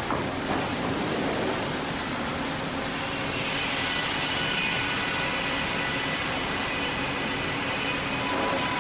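Sawmill headrig running, with the log carriage moving the log back and forth past the head saw: a steady machinery din. A faint high whine comes in about three and a half seconds in.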